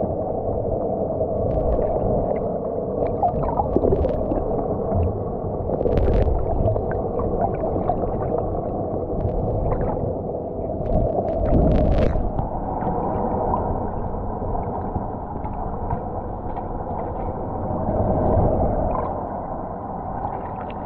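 Muffled underwater sound picked up by a submerged camera: a steady low wash of water noise with scattered small clicks and crackles, one louder crackle about twelve seconds in.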